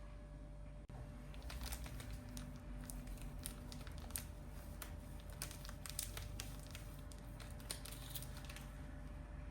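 Irregular light clicks and rustles of things being handled in a kitchen, starting about a second in and thinning out near the end, over a low steady hum.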